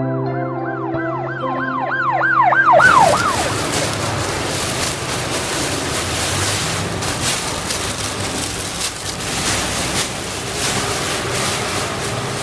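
Electronic news intro sting: a held chord with a fast siren-like wail of about four swoops a second, lasting about three seconds. It cuts off abruptly into a steady rushing noise with irregular crackles for the rest.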